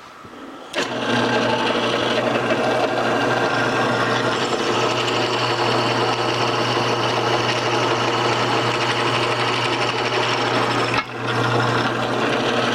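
Drill press running with its bit cutting into metal: a steady motor hum under a harsh, chattering cutting noise. It dips briefly near the end before stopping.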